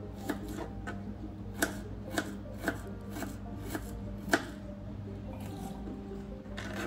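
Small kitchen knife slicing garlic cloves on a plastic cutting board: irregular sharp taps of the blade on the board, roughly two a second, the loudest about four and a half seconds in, thinning out near the end. A steady low hum runs underneath.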